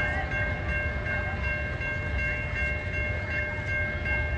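Grade-crossing warning bell ringing steadily, its tones unbroken, over a low rumble.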